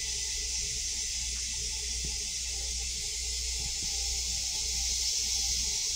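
Steady high hiss of moving air over a low hum, the background noise inside an M7 railcar restroom.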